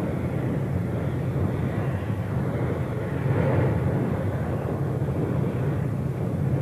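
Lava fountain erupting at Kilauea's summit, a steady low roar without a break.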